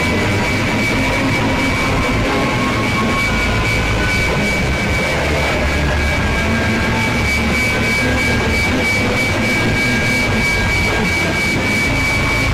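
Power-noise track: a dense, unbroken wall of rumbling noise with a steady high tone held over it.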